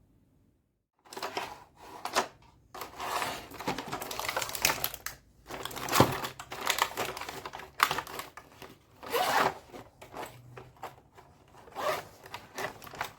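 Toy makeup set and its plastic parts being handled: a rapid, irregular run of clicks, taps and crinkly rustling that starts about a second in.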